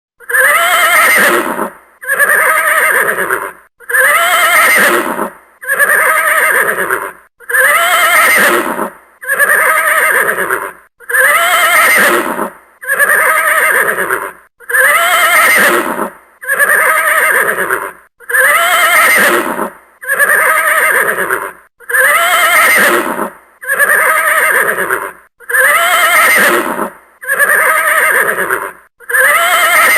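Horse neighing: a whinny with a wavering pitch, repeated over and over at an even pace about every two seconds, each call nearly identical to the last.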